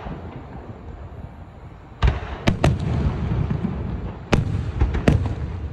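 Aerial fireworks bursting: a low rumble, then from about two seconds in a run of sharp bangs and cracks, several close together, over continuing rumbling.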